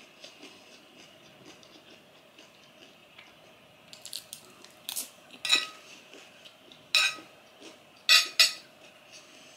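Metal spoon and fork clinking and scraping against a ceramic plate of rice: soft mouth sounds of chewing at first, then a handful of sharp, ringing clinks in the second half.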